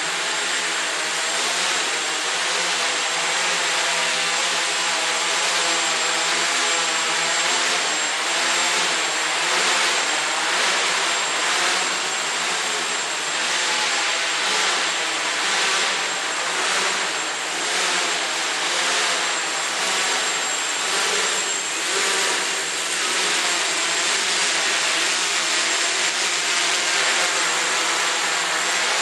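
Quadrotor's four electric motors and propellers running in flight: a steady whirring with several pitches that waver slightly up and down as the altitude and attitude control keeps changing the rotor speeds.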